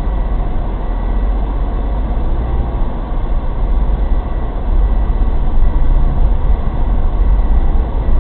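Steady low rumble of a Daihatsu Terios Kid driving through a blizzard and snowdrifts, growing louder about five seconds in.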